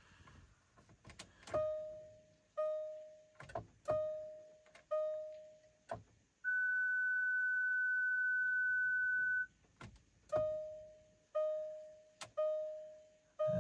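Land Rover LR4's dashboard warning chime with the ignition on and the engine not yet running: short fading chime tones about once a second, broken midway by one steady higher beep of about three seconds. A few sharp clicks fall between them.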